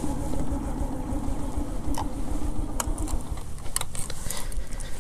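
Motorcycle engine idling at a standstill, a steady hum that fades about three seconds in, followed by a few sharp clicks.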